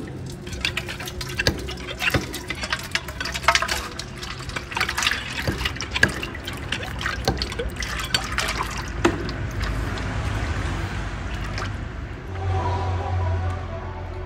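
Freshly pressed groundnut oil pouring from the outlet pipe of a bull-driven oil press (chekku) into an aluminium pot. Irregular splashes and clicks for the first several seconds, then the stream settles into a steady pour.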